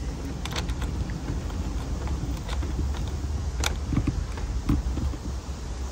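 A few light metallic clicks and taps as a washer and nut are fitted by hand over the cable ring lugs on a battery's positive terminal stud, over a steady low rumble.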